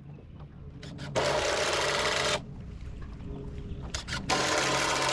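A handheld power tool run in two bursts of just over a second each, each starting and stopping sharply, with a low steady hum underneath.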